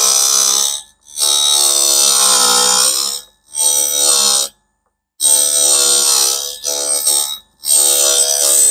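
Hafco electric drill-bit sharpener grinding the point of a dull twist drill against its wheel: a loud, high whining grind. It comes in about six bursts of one to two seconds, cutting out sharply in between, as the bit is rocked back and forth in its guide.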